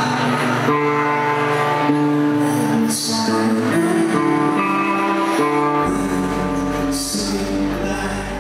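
Live band music: electric guitar and bass guitar with sung vocals. Deep bass notes come in about six seconds in.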